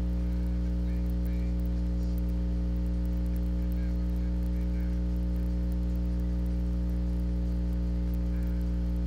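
Steady electrical mains hum with a stack of overtones, unchanging in level.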